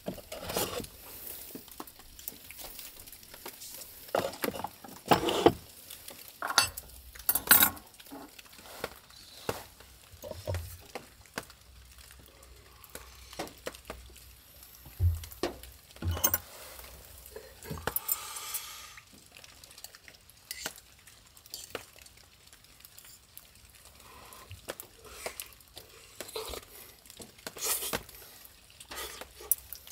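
Scattered clinks, taps and knocks of cutlery and metal cookware being handled, with a spoon clinking and scraping in a metal bowl during eating.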